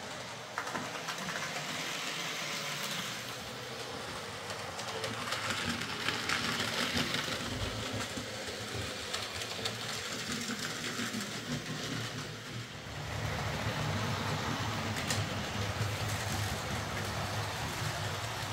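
Hornby Class A4 OO-gauge model locomotive with tender drive running round a model railway layout, its motor humming and the wheels running on the rails. It gets louder from about 13 seconds in, as the train comes close.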